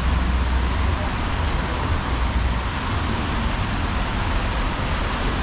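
Steady city street traffic noise with a low rumble underneath.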